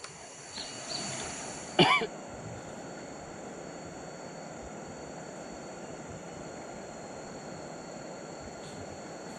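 Steady outdoor forest background with a thin, high, steady whine. About two seconds in, one short, loud, voice-like call bends in pitch.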